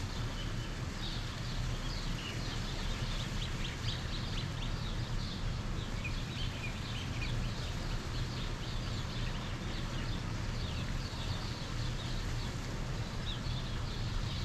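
Many small birds chirping: a dense, continuous run of short, high chirps that slide down in pitch, over a steady low background rumble.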